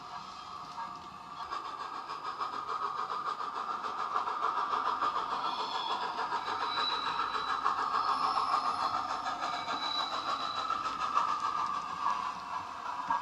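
DCC sound decoder in a Hornby Dublo Flying Scotsman model playing rapid steam-engine chuffing through its small speaker, mixed with the model's wheels running on the track. It grows louder from a couple of seconds in as the loco comes round.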